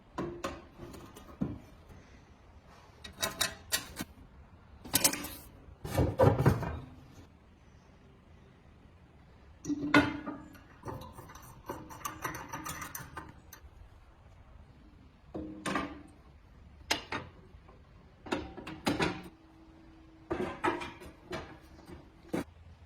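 Irregular knocks and clatters of metal parts of a gas heater being handled and fitted, about a dozen in all, some leaving a brief ringing tone.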